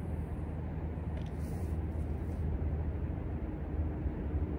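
Steady low outdoor rumble with no distinct events, and a faint steady hum in the second half.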